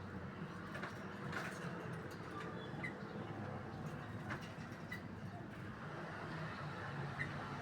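Quiet low background hum with a few faint clicks and three brief, faint high chirps spread through; the loud bird song has stopped.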